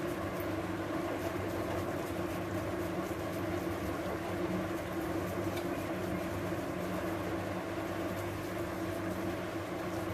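Soft, faint scraping of paneer being rubbed over a plastic hand grater into a bowl, over a steady low mechanical hum that is the loudest thing heard.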